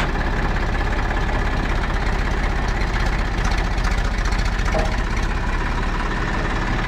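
A vehicle engine idling steadily, with an even low pulse.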